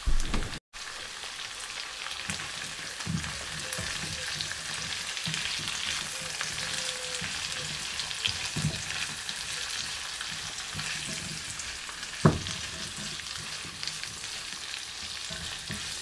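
Onion, celery, garlic and ginger sizzling steadily in hot oil in a wok, with a spatula scraping and tapping against the pan; one sharp knock about twelve seconds in.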